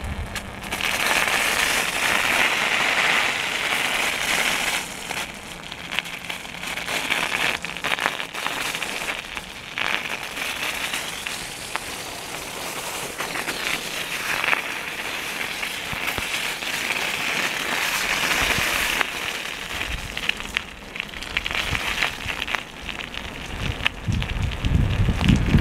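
Continuous crackling and crunching of icy snow and slush on a road surface, with irregular sharper cracks and a few short lulls.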